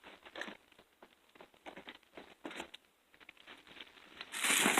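Plastic bag crinkling and rustling as cardboard snack boxes are pulled out of it and handled, in scattered small rustles and taps, with a louder stretch of crinkling near the end.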